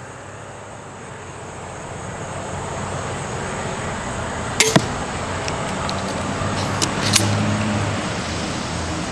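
An 80 lb crossbow pistol is shot about halfway through: two sharp cracks close together, the string releasing and the bolt striking the foam archery target. A couple of lighter clicks follow. Under it all is the steady hum of a passing vehicle, which swells and then eases.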